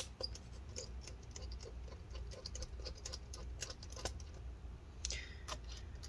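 A small screw being driven into a laptop's metal-and-plastic palmrest with a precision screwdriver: faint, rapid, fairly even ticking, with a couple of sharper clicks near the end.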